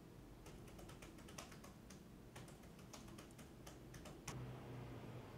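Faint typing on a laptop keyboard: a run of irregular key clicks that stops about a second before the end.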